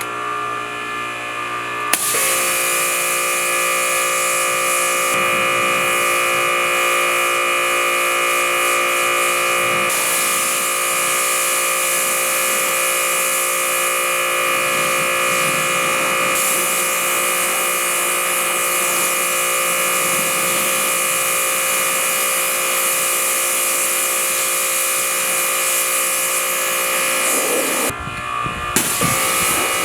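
Steady electric motor drone from a detailing tool, holding one pitch with a higher whine over it; it starts about two seconds in and breaks off briefly near the end.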